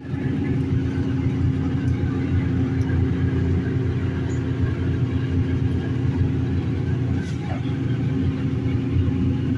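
Steady low rumble with a constant hum: a gas stove running under a pan of simmering sauce.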